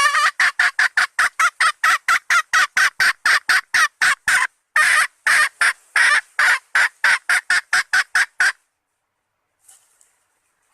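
Red junglefowl hen calling a male: a fast run of short, sharp clucking notes, about four a second, with one brief pause halfway. The calling stops after about eight and a half seconds.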